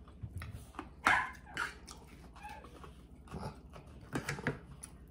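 A dog barking several short times in a quiet room, the loudest bark about a second in.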